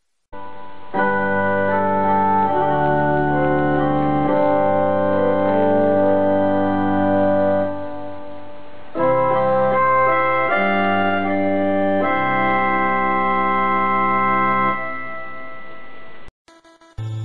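Background music: sustained organ-like keyboard chords in two long phrases, each fading away, then a different, choppier tune starting near the end.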